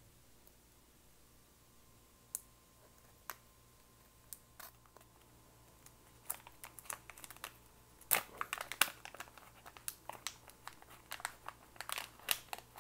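Plastic packaging bag handled and opened by hand: a few separate clicks at first, then crinkling that starts about halfway through and gets busier and louder over the last few seconds.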